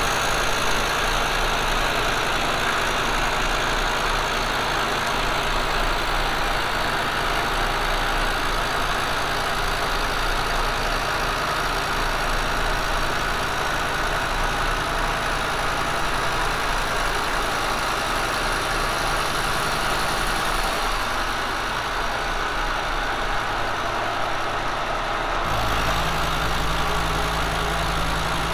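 Kearney & Trecker milling machine running a carbide face mill through cast iron, a steady cutting and machine hum as the cutter feeds across the square's face. About 25 seconds in, the low hum shifts and grows louder.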